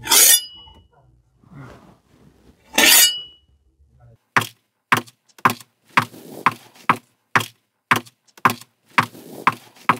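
Glass smashed twice for Foley, each crash ringing briefly. From about four seconds in, a regular series of sharp knocks follows, about two a second.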